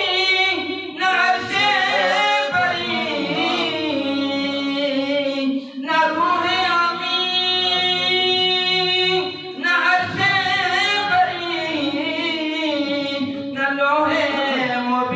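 A man sings an Urdu devotional poem (naat) without accompaniment, in long, ornamented held notes with short pauses for breath.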